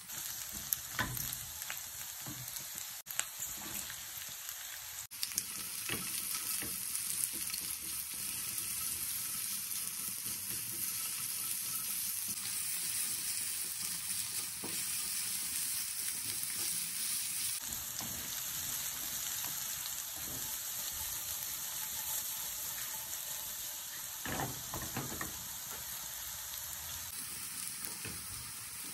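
Chicken strips and carrot sticks sizzling steadily in a hot non-stick frying pan, turned over and over with a silicone spatula that scrapes and taps against the pan.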